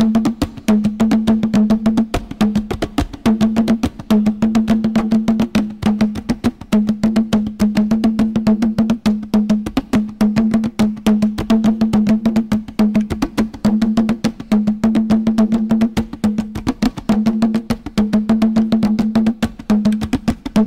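Background music: rapid, dense percussion over a repeating low note held about a second at a time.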